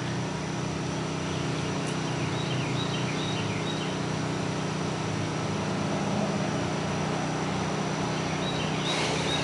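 Pressure washer engine running steadily, with the hiss of water spraying during a low-pressure rinse. A few faint bird chirps come about two to three seconds in.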